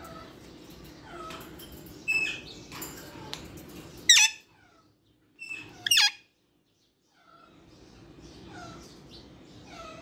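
Alexandrine parakeets calling: two loud, harsh screeches about two seconds apart near the middle, among softer, repeated falling chirps.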